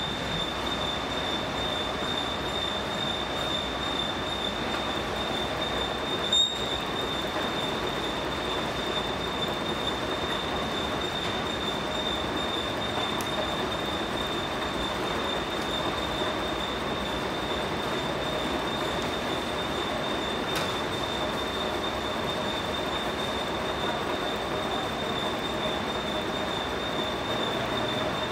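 150-ton rubber moulding hydraulic press running: a steady mechanical whine with a constant high tone. One short click comes about six seconds in.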